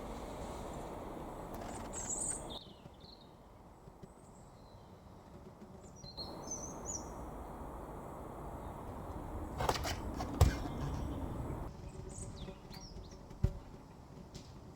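Birds chirping now and then over steady outdoor background noise, with a few sharp knocks near the middle and one near the end. The background level changes abruptly a few times.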